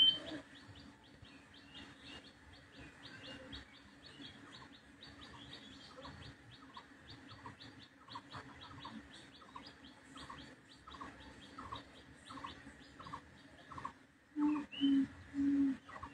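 Small bird chirping repeatedly, several short high chirps a second. A few short, louder low sounds come near the end.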